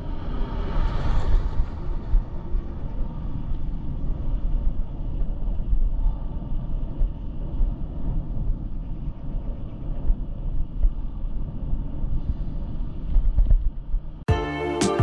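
Wind buffeting a head-mounted action camera's microphone, with road rumble, while riding an e-bike. Near the end it cuts abruptly to plucked-string music.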